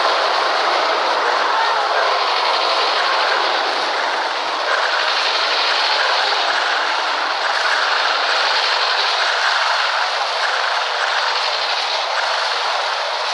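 Animal stampede sound effect: a loud, steady, dense rushing noise without breaks.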